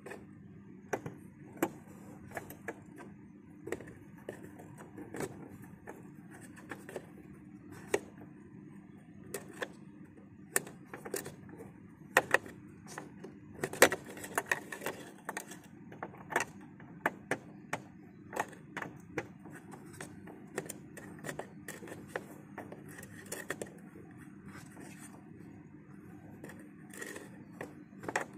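Scattered, irregular clicks and taps of a small hand tool being worked by hand in a screw hole of a car's plastic door trim, busiest about halfway through, over a faint steady hum.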